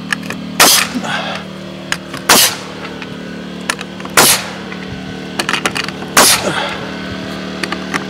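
Pneumatic coil nailer firing nails into wooden siding slabs: four sharp shots about two seconds apart, over a steady low hum.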